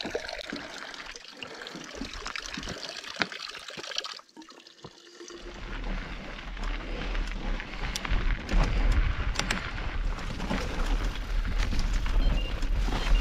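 Mountain bike riding down a rough dirt and rock trail: steady tyre noise with many sharp rattling clicks from the bike. About five seconds in, a deep rumble of wind on the microphone sets in.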